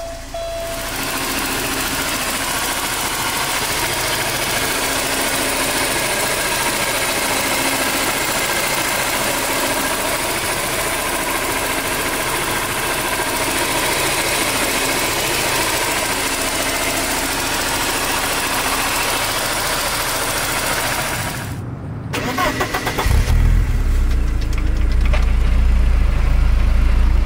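1989 Porsche 944 S2's 3.0 L 16-valve four-cylinder engine idling steadily, heard first at the open engine bay. After a short break about 22 seconds in, it is heard at the tailpipe, louder, with a deep low exhaust note.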